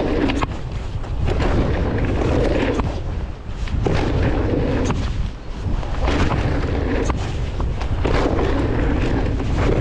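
Mountain bike ridden fast on a dirt trail: wind buffeting the microphone with a heavy rumble, tyres on the dirt, and scattered clicks and rattles from the bike. The noise dips briefly twice, about three and a half and five and a half seconds in.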